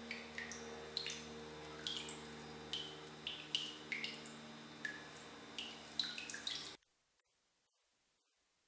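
Water dripping in quick, irregular plinks over a low steady hum; both cut off suddenly about seven seconds in.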